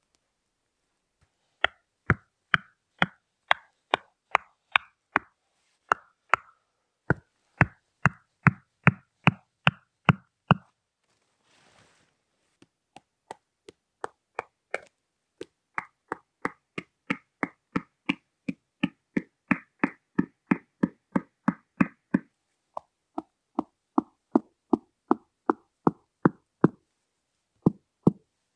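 Wooden tent pegs being hammered into forest ground by hand: sharp knocks, about two to three a second, in several runs with short pauses between pegs.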